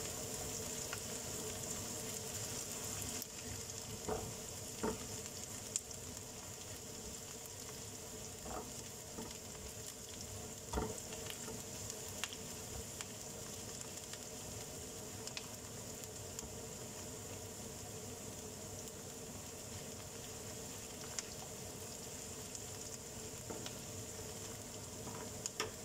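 Chopped onion, ginger and garlic sizzling gently in a nonstick frying pan, stirred with a silicone spatula that gives a few light clicks against the pan. The aromatics are being sautéed until they brown and start to caramelize.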